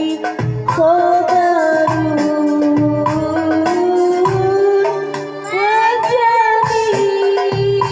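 A woman singing long, held notes with vibrato over a backing track with hand-drum percussion. About five seconds in she briefly drops off, then slides up into a higher held note.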